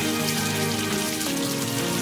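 Background music with held notes over a steady rain-like patter of water.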